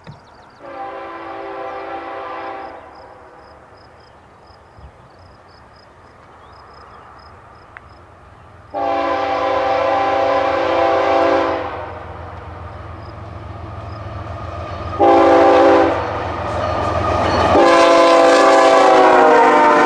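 Diesel freight locomotive's multi-chime air horn sounding the grade-crossing signal: long, long, short, long, the last blast sagging slightly in pitch as the BNSF lead engine passes close by. A crossing bell dings faintly through the first several seconds, and the locomotive's rumble builds as it approaches.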